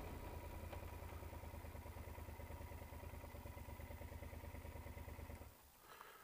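Yamaha XT1200Z Super Ténéré's parallel-twin engine idling steadily, then stopping abruptly about five and a half seconds in.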